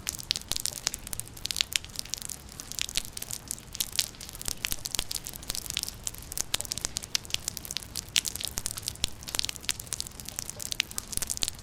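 Rain falling, a dense, irregular patter of individual drops striking close by, over a low steady rumble.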